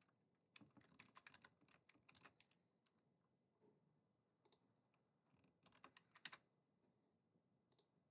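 Faint typing on a computer keyboard: short runs of keystrokes, the longest run in the first couple of seconds and another around six seconds in, with a few single clicks between.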